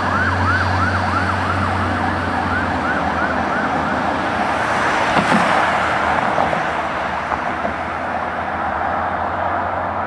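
Fire engine's siren on a fast yelp, about three sweeps a second, fading as the truck drives away over the first few seconds. Then road noise from a passing car takes over around the middle.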